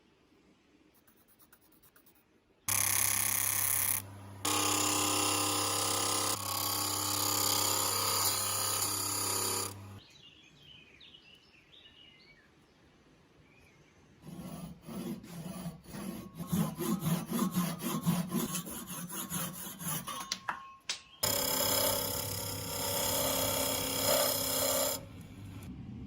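Workshop tool work on metal: an electric tool runs steadily for several seconds, then stops. This is followed by a stretch of irregular rubbing and scraping strokes, and another steady run of a tool near the end.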